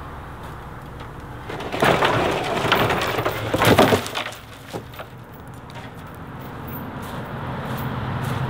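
Large storm-broken tree limb sliding off a playset and crashing down, with wood cracking and snapping, about two seconds long with two loud peaks, followed by a few small knocks.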